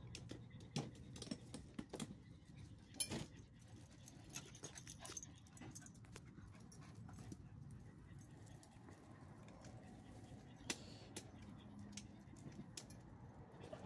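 Small dogs moving about and sniffing on brick paving and gravel: faint scattered clicks and light taps, with a sharper click about three seconds in and another near eleven seconds.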